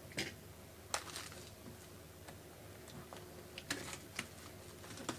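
Faint, irregular light clicks and taps, a handful spread over a few seconds, over a low steady hum.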